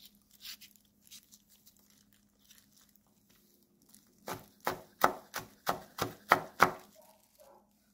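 Kitchen knife chopping a red chili pepper on a wooden cutting board: a few faint cuts, then, about four seconds in, a quick run of about nine sharp knife strikes on the board, about three a second.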